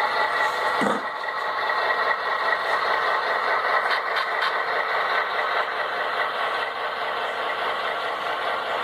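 Model diesel locomotives running past close by on model railroad track, a steady mechanical whirr of motors, gears and wheels on rail with faint steady tones. A brief falling tone about a second in.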